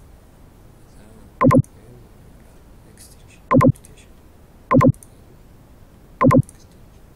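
Computer mouse clicks: four short, loud clicks a second or two apart, over a low steady hiss.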